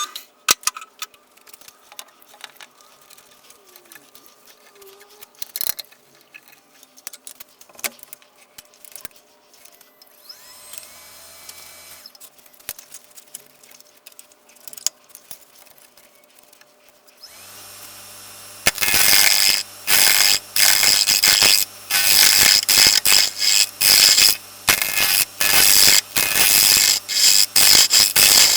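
Scattered small knocks and clicks of the lathe being set up, then an electric wood lathe's motor starts with a steady hum and a turning gouge cuts into the spinning maple blank in loud, repeated scraping strokes about once a second.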